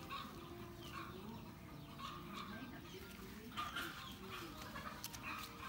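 Hands working soapy lather into a wet puppy's fur, with short wet squelches now and then, over intermittent short low animal calls.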